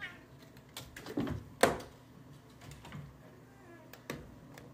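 Several light clicks and knocks at a glass-paned door, the loudest about a second and a half in.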